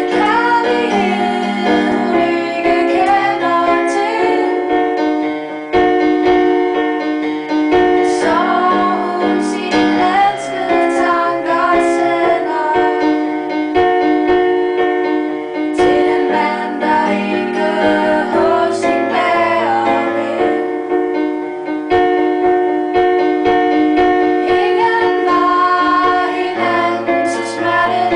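A woman singing a song, her voice wavering in pitch on held notes, over keyboard accompaniment playing sustained chords that change every second or two.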